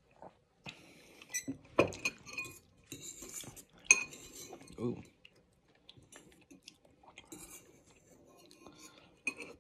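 Metal spoon clinking and scraping against a ceramic bowl while stirring and scooping noodles and broth. Dense, sharp clinks with a short ring come in the first half, and a few lighter clinks come near the end.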